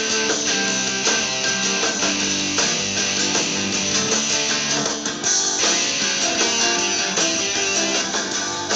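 Guitar playing a bluesy run of picked and strummed notes without a break.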